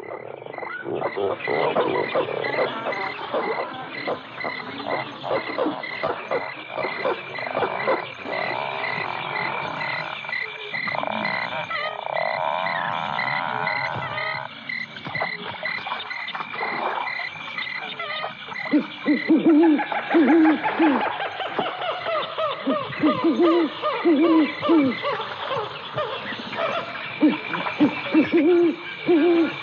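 Night-swamp ambience from the ride's soundtrack: a dense chorus of croaking frogs over an evenly pulsing high insect chirp. From about 19 seconds in, low repeated hooting croaks join, and the pulsing chirp fades out.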